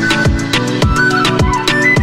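Background music with a heavy beat: a deep kick drum falling in pitch on each hit, about twice a second, with fast ticking hi-hats and a high melody line over it.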